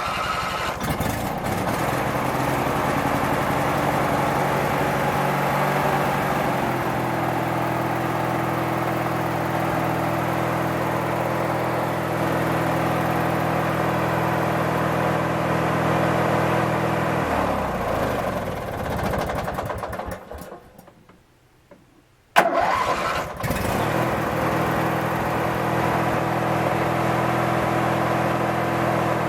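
Craftsman 19.5 twin riding mower's twin-cylinder engine running and settling into a steady idle. About 17 seconds in it winds down and stops. After a few seconds of near silence there is a sharp click, and the engine starts again at once and runs steadily.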